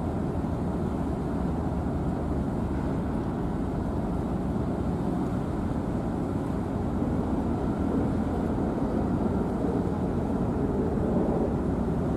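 Harbour tugboat's diesel engines running: a steady low rumble with a faint constant hum, getting slightly louder in the second half.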